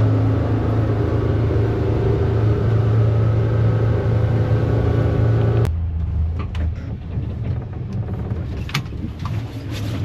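Boat motor running steadily under way at a constant pitch, cutting off abruptly a little over halfway through. After it, quieter wind and water noise with a few scattered knocks.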